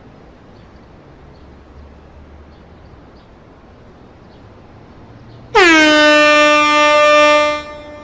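Compressed-air horn giving one blast of about two seconds, about two-thirds of the way in: the pitch drops quickly at the start, then holds a steady, loud tone until it cuts off. Before it, only faint background noise.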